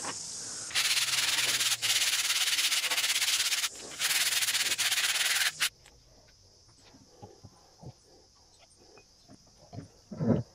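A loud, steady rasping of the alloy mast tube being abraded to prepare it for epoxy gluing, in two long runs with a short break, which stops abruptly. After it come faint clinks and taps of epoxy being stirred in a small glass jar, with one louder knock near the end.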